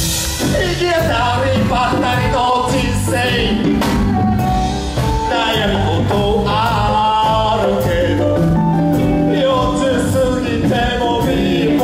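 Live band music: a male vocalist sings into a microphone over drums, bass and electric guitar, with congas on stage.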